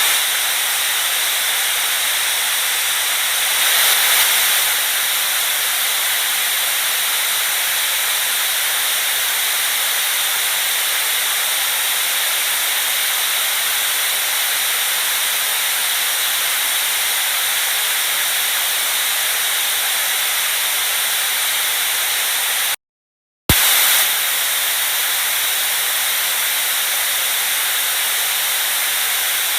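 Steady white noise, a hiss weighted toward the high end, swelling slightly about four seconds in. About three-quarters of the way through it cuts out for half a second and comes back with a click.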